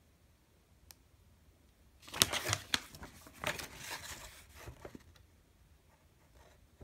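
Paper instruction leaflet rustling and crinkling as it is handled and turned over, for about three seconds starting about two seconds in.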